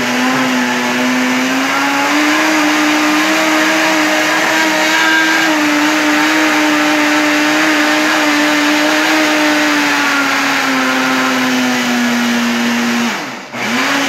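Electric countertop blender running steadily while blending a lemon mousse mixture, its motor pitch rising a little about two seconds in and dropping back near ten seconds. The motor cuts out about thirteen seconds in and is switched on again at the very end.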